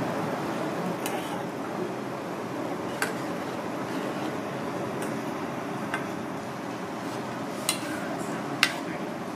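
Hot oil sizzling steadily around battered pieces deep-frying in a small aluminium saucepan, with a metal ladle clinking against the pan about five times, loudest near the end.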